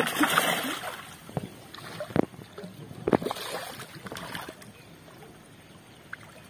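A hooked fish thrashing and splashing at the water's surface as it is pulled to the bank. A loud burst of splashing at the start, a few sharp splashes around two and three seconds in, then quieter sloshing near the end.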